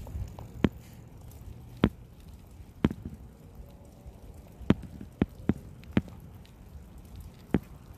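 Bicycle being ridden: sharp clicks and knocks at irregular intervals, about eight in all, over a low rumble.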